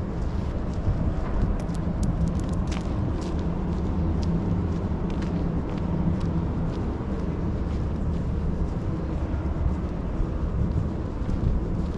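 Downtown street ambience: a steady low rumble of vehicle engines, with scattered light clicks in the first few seconds.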